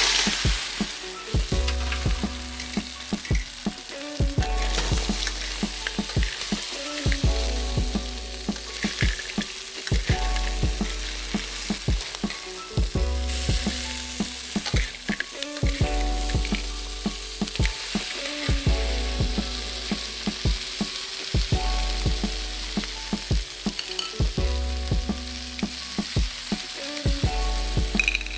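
Crab frying in hot oil in a pan, a steady sizzle, with background music playing a repeating bass line and steady beat.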